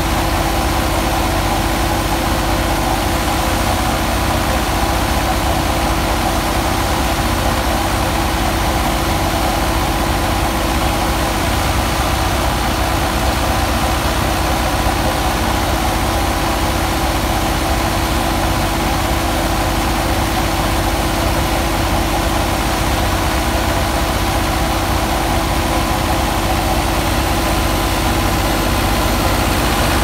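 Fiat 640's four-cylinder diesel engine running steadily under load, driving a wheat thresher through its PTO shaft, with the thresher running alongside. The sound holds a constant level throughout.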